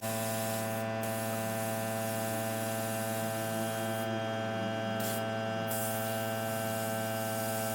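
Air hissing out of a tubeless racing tire's valve stem as the tire is let down toward 20 psi, the hiss breaking off briefly a few times. A steady hum runs underneath.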